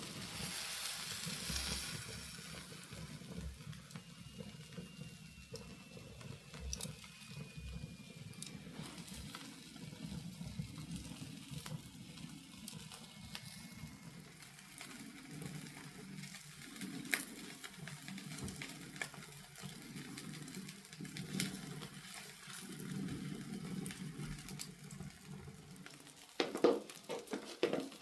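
Wood fire crackling in a fireplace, with fat hissing and sizzling on the embers as a chicken roasts over it. The hiss is strongest in the first couple of seconds, then scattered crackles follow, with a few sharper pops near the end.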